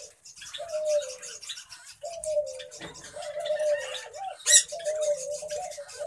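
Birds calling: a low, coo-like tone, slightly falling, repeats every second or so over fast, high-pitched chirping, with one sharp, louder click a little after four seconds in.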